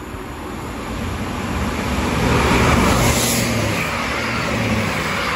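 Two coupled Class 158 diesel multiple units passing through the station at speed without stopping: diesel engine drone and rushing noise swell to a peak about three seconds in and stay loud to the end.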